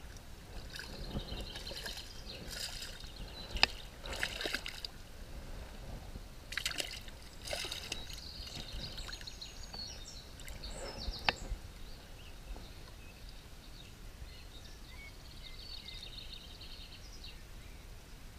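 Shallow stream water splashing and sloshing in uneven spurts as a freshly caught brown trout is grabbed by hand at the water's edge, with two sharp clicks along the way. Later it settles to the quieter, steady trickle of the stream.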